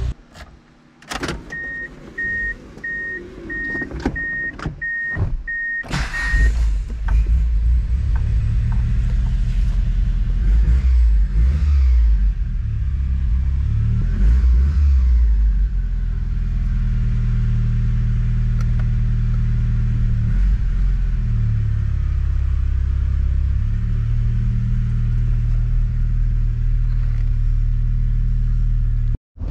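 A few thuds and clicks of getting into a car while a warning chime beeps about twice a second. Then the 1988 Mitsubishi Starion Turbo's turbocharged 2.6-litre four-cylinder starts about six seconds in, is revved a few times, and settles into a steady idle.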